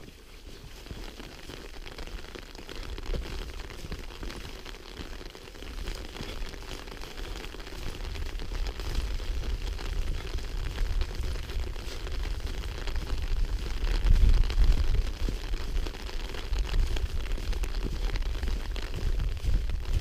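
Wind buffeting the microphone: a gusty low rumble that strengthens about halfway through, with faint scattered ticks above it.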